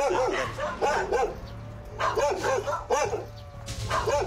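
A dog barking excitedly in quick runs of short, high barks, with a thin whine in the pauses between runs. The dog is worked up by a person approaching it.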